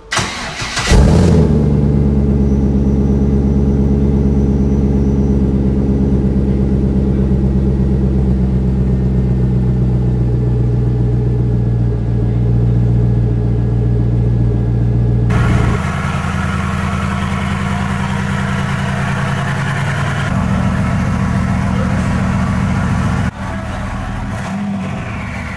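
Pontiac Trans Am WS6's V8 engine running with a steady deep rumble, getting loud suddenly about a second in. The tone changes abruptly a few times later on.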